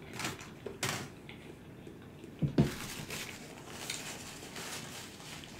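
Close-miked eating sounds: chewing a mouthful of stir-fry noodles with small wet clicks, a short low thump about two and a half seconds in, then a paper napkin rustling as it is wiped across the mouth.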